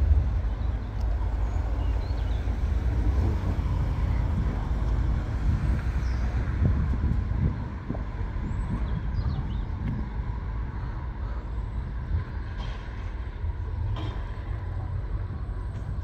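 Diesel engines of a Greater Anglia Class 755 bi-mode multiple unit running at a low rumble, easing a little about halfway through.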